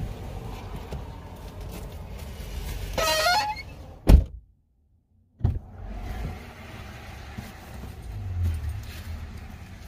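Low, steady rumble of a car. About three seconds in comes a short, wavering high-pitched tone. A sharp click follows, then about a second of dead silence where the recording is cut, and another click before the rumble returns.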